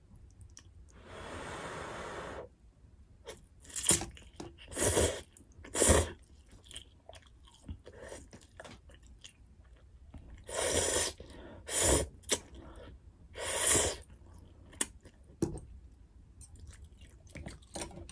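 Close-miked eating sounds of cup ramen and gimbap: chewing, with one longer noisy stretch about a second in and a series of short, sharp mouth sounds spread through the rest.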